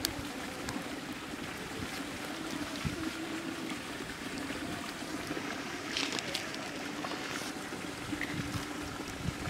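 Steady outdoor background noise with a faint low hum, and a few soft handling sounds as marinated chicken leg pieces are lifted and cut with a knife on a plastic plate, one a little louder about six seconds in.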